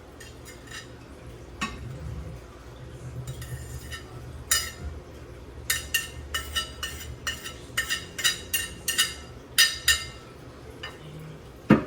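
Kitchen utensils and dishes clinking: a few light taps, then a quick run of sharp ringing clinks from about four seconds in, over a low steady hum.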